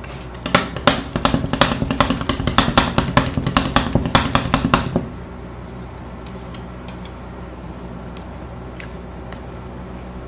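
Metal spatulas chopping and tapping ice cream mixture on a stainless-steel cold plate: fast, rhythmic clacks of about six strikes a second that stop suddenly about five seconds in. A low steady hum remains, with a few faint scrapes.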